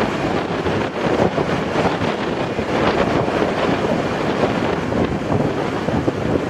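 Airbus A320-family airliner's twin jet engines at takeoff power during the takeoff roll, a steady rushing noise heard from behind the aircraft, with wind buffeting the microphone.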